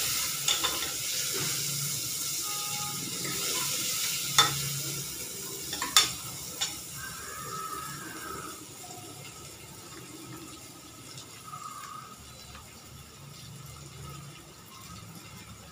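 Onions frying in hot oil in a pan, sizzling, with a spoon stirring and knocking sharply against the pan twice, about four and six seconds in. The sizzle is loudest in the first few seconds and dies down after that.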